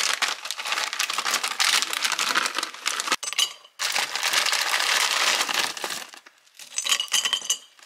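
Plastic snack bag crinkling as small crisp bake rolls are poured out of it into a glass jar, stopping briefly about three seconds in and again near the end.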